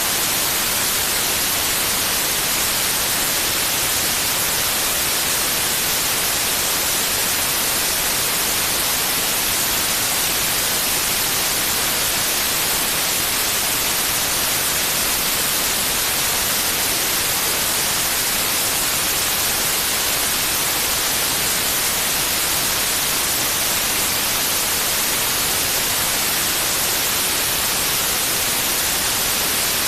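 Steady white noise: an even, unchanging hiss, brightest in the high frequencies, played as a sleep aid for babies.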